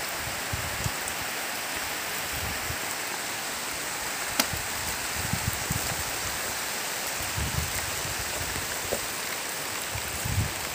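Heavy rain falling steadily on a garden: an even, constant hiss of rain on leaves and ground. There are a few low thumps on the microphone and one sharp click about four seconds in.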